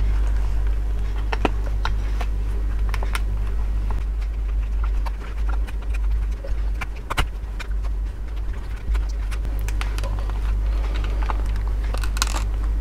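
Scattered small clicks and scrapes of plush fur being pried and peeled off a toy dog's plastic body with a thin metal tool, over a steady low hum.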